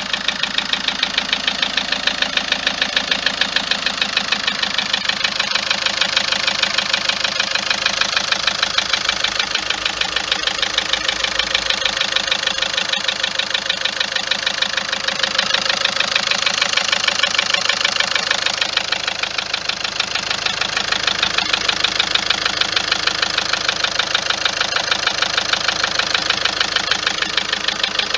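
Car engine idling with a steady, rapid ticking knock that keeps an even rhythm and does not let up. The mechanic puts the ticking down to the injector nozzles and the tappets.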